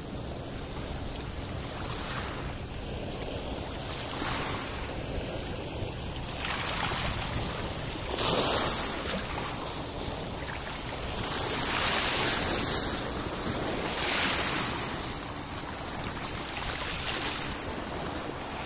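Small sea waves washing over a stony shallow shore, the hiss swelling and fading every couple of seconds, with wind rumbling on the microphone.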